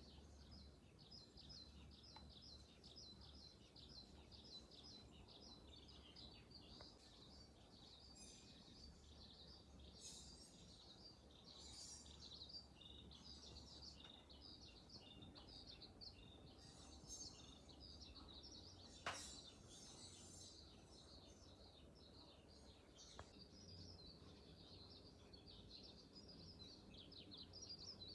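Faint chirping and twittering of small birds, many short calls overlapping throughout. A single sharp click sounds about two-thirds of the way in.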